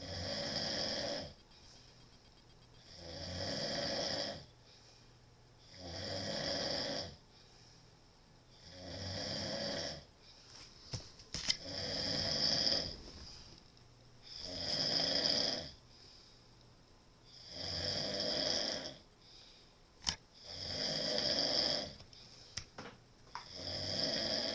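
A person snoring loudly in a steady rhythm, one long snore about every three seconds, with quiet gaps between.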